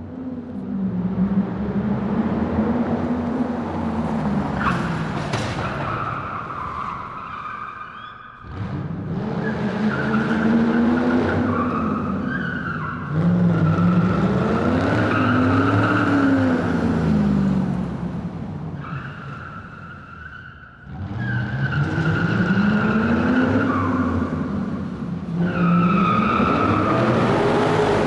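Car tyres squealing continuously while the car's engine revs up and down. The sound comes in three long runs, each fading briefly about 8 and 21 seconds in before the next begins.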